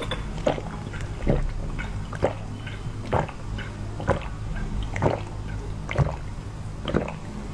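A person gulping down a drink, about one swallow a second in an even rhythm, over a low steady hum.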